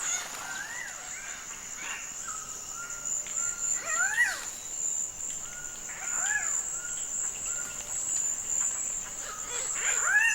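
Cock-of-the-rock males calling at their lek: three loud, harsh calls that rise and fall in pitch, near four seconds, about six seconds and at the end, with short whistled notes between, over a steady high-pitched insect drone.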